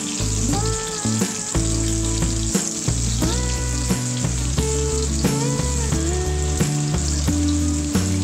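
Boiled potatoes frying in oil in a non-stick kadai, a steady sizzle with clicks and scrapes as a spatula turns them. Background music with a sustained bass line plays along.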